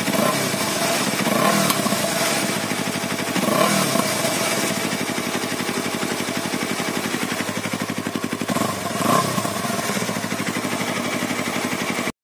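Yamaha R25 250 cc parallel-twin engine running with the muffler removed, exhaust coming straight out of the open link pipe. It idles with a few short blips of the throttle, and the under-engine pre-chamber keeps the open-pipe note fairly mild. The sound stops abruptly near the end.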